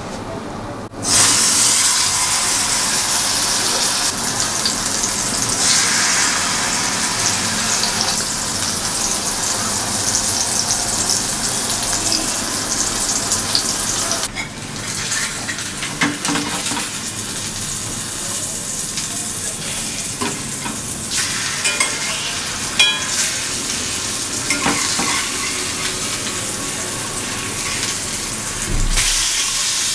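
Slices of chilli-masala-coated seer fish frying in hot coconut oil. A loud sizzle starts suddenly about a second in as the fish goes into the oil, with scattered crackles of spattering oil. Near the end a spatula turns a slice.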